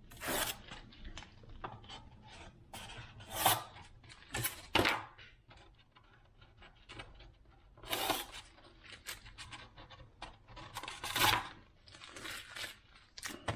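Hands handling an RC model fuselage on a workbench: irregular scraping, rubbing and rustling, with several louder scrapes.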